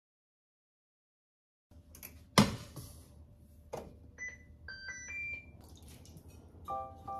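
Two knocks, then a quick series of short electronic beeps at several pitches from an induction cooktop's touch controls as it is switched on and the heat is set. Near the end a repeating light musical pattern begins.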